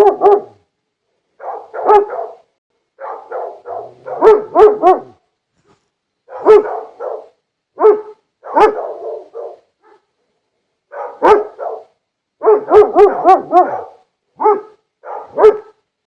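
Large dog barking in quick volleys of two to five deep, sharp barks, each volley separated by a moment of dead silence.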